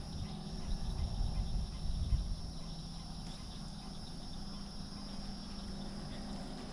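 Steady outdoor insect chorus, a constant high chirring, with low rumbling noise during the first two seconds or so.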